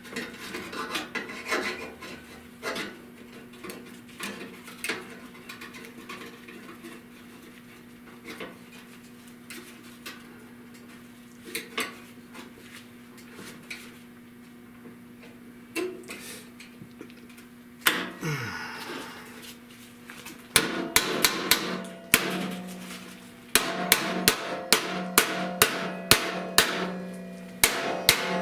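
Sheet-steel repair patch being hammered to bend it down: scattered light knocks at first, then, about two-thirds of the way through, a steady run of sharp metal hammer blows, two to three a second.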